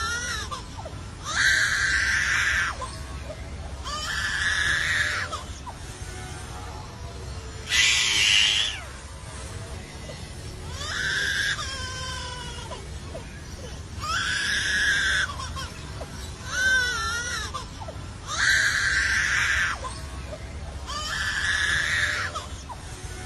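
A bird giving loud, harsh, scream-like calls, each about a second long with a wavering pitch, repeated every two to three seconds.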